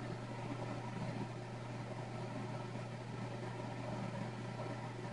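Steady low hum under an even faint hiss, unchanging throughout: background room tone with no distinct event.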